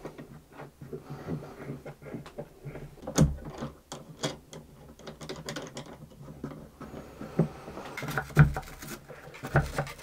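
Spool clamps being set around the edge of a cello and screwed down to glue the top onto the ribs: irregular small clicks and taps of wood and metal, with a few louder knocks. A steady low hum runs underneath.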